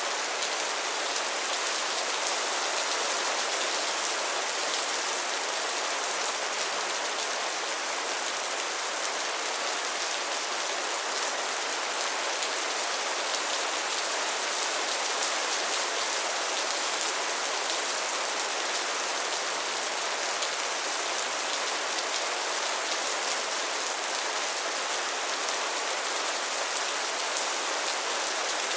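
Steady rain falling, an even hiss of many small drops pattering on surfaces, without thunder or changes in intensity.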